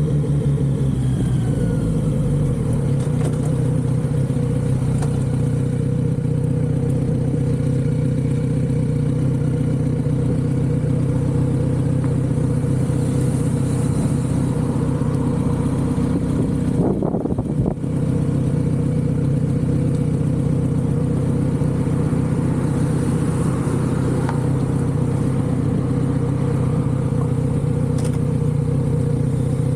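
Kawasaki Z900RS inline-four engine running through its stock exhaust, held at a steady cruising speed. There is a brief break and dip in the sound about seventeen seconds in.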